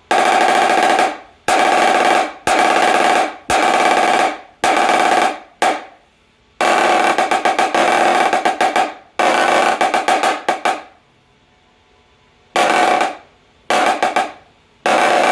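Marching snare drum with a mylar bottom head, played in a series of short rolls and fast stroke patterns with brief pauses between them. Each burst has a strong, high ringing pitch from the tightly cranked top head, which is still short of the very tight 'tabletop' tension being tuned for.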